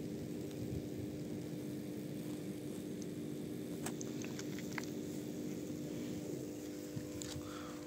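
Steady electrical hum of a 400/220 kV substation: a low drone made of several fixed tones, one standing out above the rest, over a low rumbling noise. A few faint short high ticks come about four to five seconds in.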